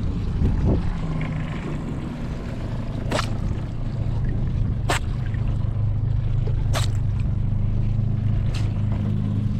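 Boat engine idling steadily, with four sharp clicks about two seconds apart.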